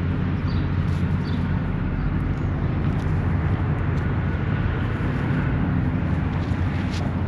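Wind buffeting the microphone outdoors: a loud, steady, fluttering low rumble.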